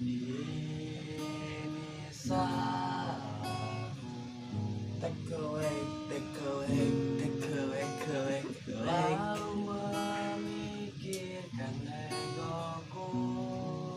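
Acoustic guitar being strummed, playing the chords of a song.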